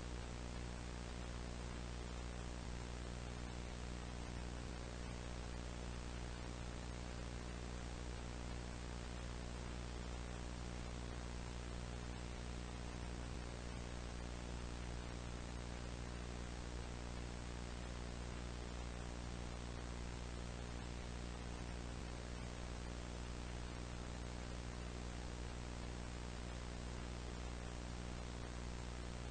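Steady electrical hum, buzzy with many overtones, under an even hiss like static. It stays the same throughout.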